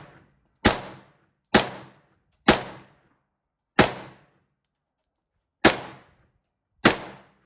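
Six single gunshots at an uneven pace, about a second apart at first, then with longer gaps.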